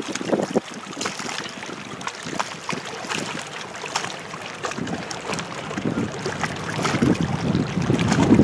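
Wind buffeting the camera microphone in gusts, getting stronger in the second half, over a steady rush of water from a dam's open spillway gates and the fast, flooded river below.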